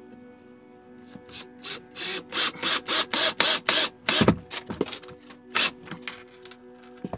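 Cordless Ryobi drill run in a quick series of short bursts, about three a second, working into a wooden plank wall, with a heavier knock about four seconds in and a few scattered bursts after.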